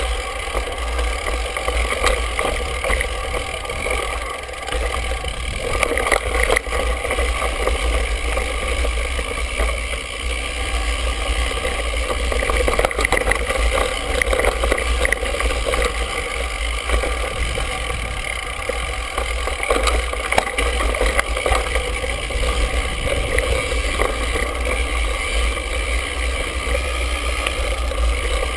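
Mountain bike ridden over a dry dirt and gravel singletrack, heard through a handlebar-mounted GoPro housing. There is a continuous rumble of tyres and frame vibration, with frequent small rattles and knocks as the bike bounces over the rough ground.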